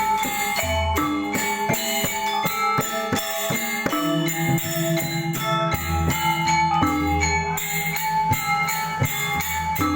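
Balinese gamelan playing: bronze metallophones ring out fast struck notes over drum strokes, with deep gong tones sounding several times.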